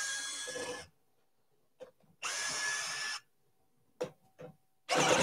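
12-volt cordless screwdriver motor running in short trigger bursts: a fading run at the start and a steady run of about a second near the middle, with a few clicks between.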